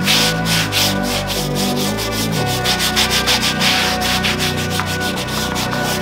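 Background music with a steady beat and a stepping bass line, under the scratchy swish of a stiff tyre brush scrubbing a soapy, wet tyre sidewall.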